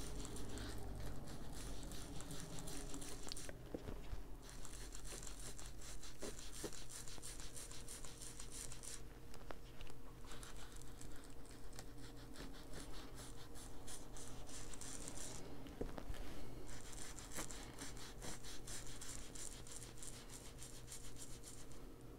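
Foam ink blending tool rubbing Distress Ink onto paper in fast scrubbing strokes. The strokes come in stretches of a few seconds, with three short pauses.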